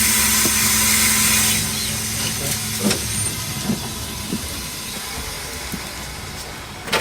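Inside an Irisbus bus: a loud hiss of compressed air from the bus's pneumatic system, lasting about a second and a half after a sharp click. Then the cabin rumble goes on, with a few knocks about three seconds in and a sharp click at the end.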